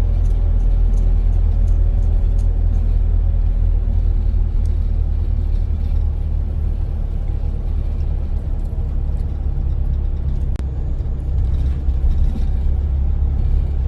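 Steady low rumble of a moving car.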